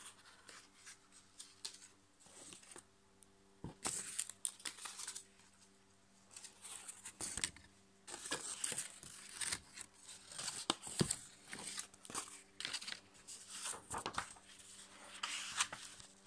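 Sheets of copy paper and folded paper airplanes being handled, rustling and crinkling in irregular bursts, with a few light knocks on the table.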